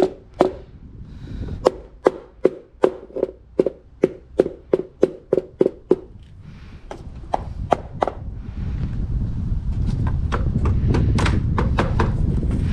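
Hammer blows on the door trim and its nails, about two and a half strikes a second, each with a short ring, for about six seconds. Then scattered lighter knocks and taps over a low rumble that grows louder.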